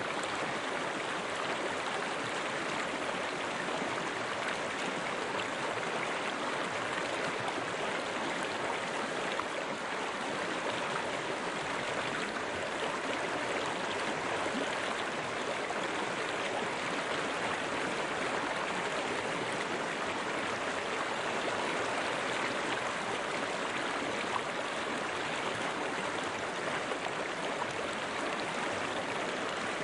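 Running river water flowing steadily, an even rushing and babbling with no breaks or changes.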